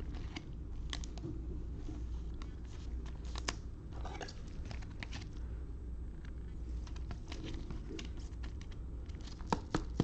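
Trading cards and plastic pack wrappers being handled: scattered crinkles and light clicks over a steady low hum, coming faster near the end.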